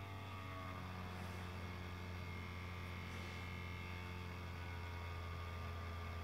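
Steady low hum with several faint, steady whining tones above it, from a laptop working under a GPU benchmark load.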